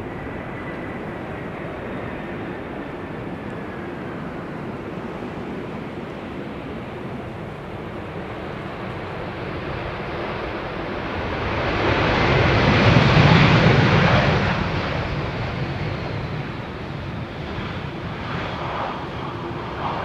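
Airbus A319 airliner landing and rolling out, its jet engines swelling to a loud rush about halfway through as it passes, then fading, over steady wind noise on the microphone. A faint falling whine is heard near the start.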